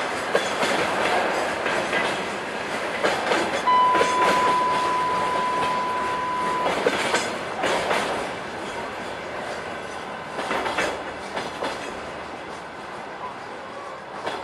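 Freight train of container flatcars rolling past, wheels clacking over the rail joints, the sound dying away as the tail of the train passes. About four seconds in, a steady high beep lasting about three seconds is laid over it, a censor bleep covering swearing.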